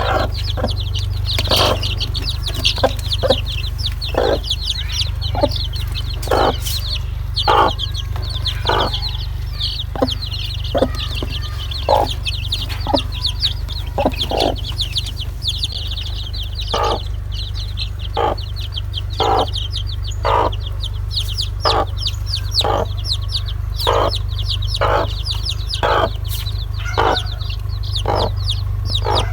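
Domestic chicks peeping in a rapid, continuous high chorus, with a hen clucking about once a second over it and a steady low hum underneath.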